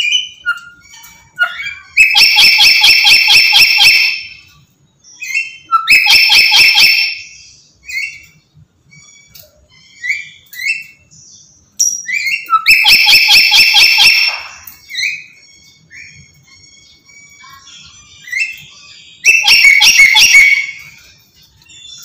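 Black-capped lory screeching: four loud bursts of rapidly repeated harsh calls, each lasting one to two seconds, with softer short chirps and whistles between them.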